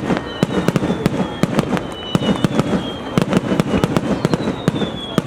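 Aerial fireworks bursting in rapid, irregular succession: many sharp bangs and crackles, with a faint high whistle sliding slowly down in pitch now and then.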